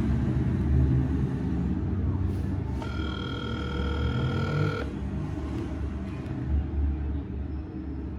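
Phone ringing out on an outgoing call that nobody picks up: one steady ringing tone about three seconds in, lasting about two seconds, over a continuous low rumble.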